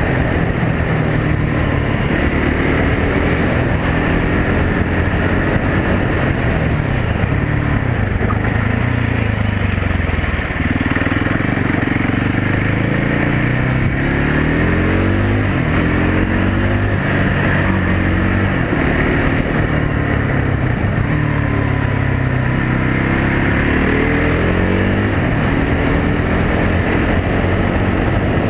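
Can-Am DS 450 ATV's single-cylinder four-stroke engine running under way. Its pitch rises and falls again and again as the rider accelerates and eases off.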